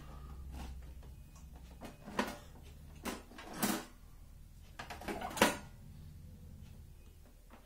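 Electric deep fryer being handled: a handful of short knocks and clatters from its plastic lid and stainless body, the loudest about five seconds in as it is set down on a glass tabletop. A low steady hum sits underneath.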